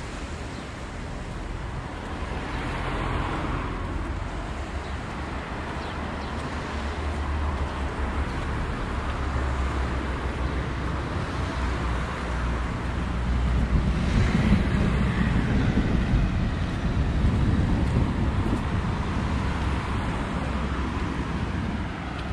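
Cars passing on the road alongside, one about three seconds in and a louder one past the middle, over a steady rumble of wind on the microphone.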